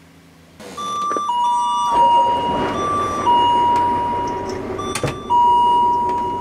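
School bus low-air-pressure warning, rewired to a two-note doorbell-style chime, repeating a high-then-low ding-dong about every two seconds: the air brake pressure is still below the warning point. About two seconds in, the bus engine's rumble comes in underneath, and there is a sharp click about five seconds in.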